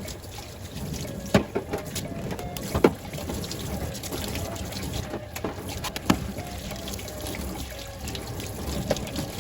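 Water running and splashing in a sink, with a few sharp knocks, three of them standing out, as something is handled in it.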